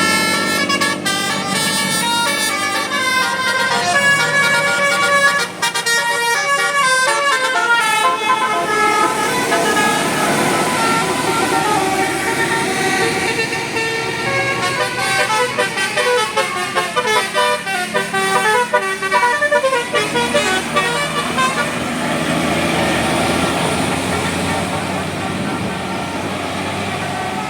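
Indonesian bus telolet horn playing a tune of quick stepping notes for the first several seconds, then giving way to a denser, noisier mix with more wavering horn tones.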